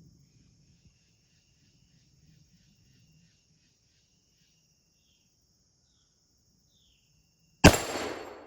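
A Lyman Great Plains .50-calibre percussion muzzleloading pistol fires once near the end, loaded with muzzleloader propellant behind a patched round ball: a single very loud shot whose report rings and dies away over about a second. Crickets chirp steadily before the shot.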